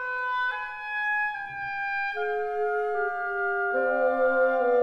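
Background music: a slow melody of held, pitched notes in a woodwind-like voice, changing note every second or so. About four seconds in, lower notes join underneath and the music grows a little louder.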